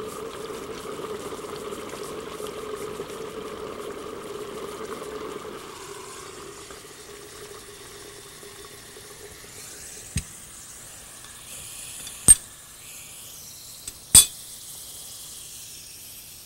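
Liquid nitrogen boiling and bubbling around a metal Cryocup and dipper held submerged to freeze a tissue specimen, a steady hiss that dies down about six seconds in. Later come three sharp metal clicks, the last two loud, as the dipper assembly is lifted out and handled.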